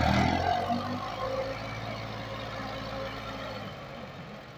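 Massey Ferguson 240 tractor's three-cylinder diesel engine revving hard under heavy load as it drags a loaded trolley through deep mud. It is loudest at the start, then eases off gradually and drops near the end.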